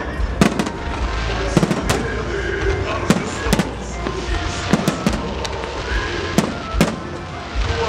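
Display fireworks: aerial shells bursting overhead in quick succession, sharp bangs about two a second over a continuous rumble and crackle, with music playing behind.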